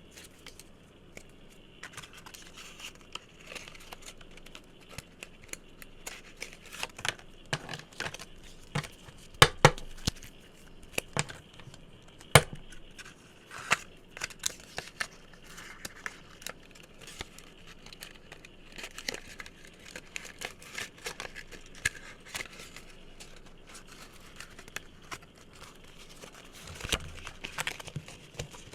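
Close-up ASMR tapping and handling of assorted objects: irregular light taps, clicks and crisp rustling, with a few sharper taps near the middle.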